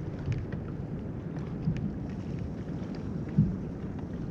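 Wind rumbling on the microphone and water lapping against a plastic kayak hull, with scattered small knocks and one louder thump about three and a half seconds in.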